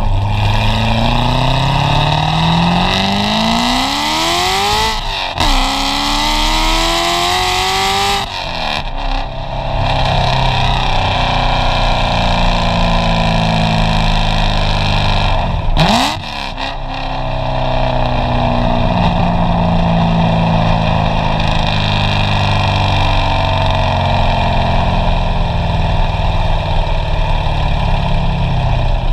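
Exhaust of a supercharged 2014 C7 Corvette's 6.2-litre LT1 V8, fitted with catless long-tube headers and a 3-inch X-pipe, heard at the tailpipes while driving. It revs up hard twice in the first eight seconds, each run ending in a gear change, gives a short sharp blip about halfway, then cruises with the revs rising and falling gently.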